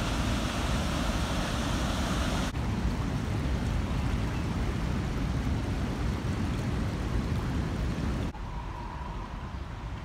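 Steady rushing of river water pouring over a low dam spillway and flowing past, with a deep rumble of wind noise. The sound changes suddenly about two and a half seconds in and turns quieter near the end.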